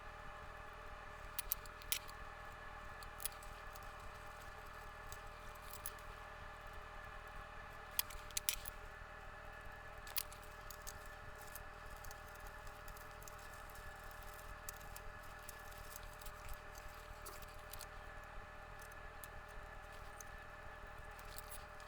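Steady hum from bench equipment with scattered sharp clicks and small handling noises of hand tools while the old power switch is desoldered from the circuit board; the loudest clicks come in pairs about 2 and 8 seconds in.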